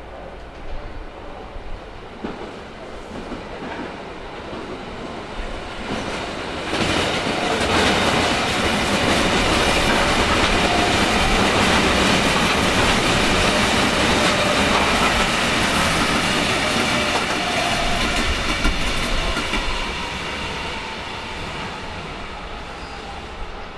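Berlin S-Bahn electric train passing on the station tracks: wheels running on the rails, building over the first several seconds, loudest through the middle with steady high tones, then fading as it moves away.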